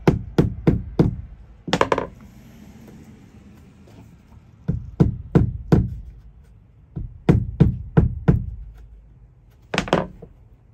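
A small mallet tapping a vinyl click-lock floor plank along its joint to seat it and lock it into the neighbouring plank. The taps come in three quick runs of about four, with one last tap near the end.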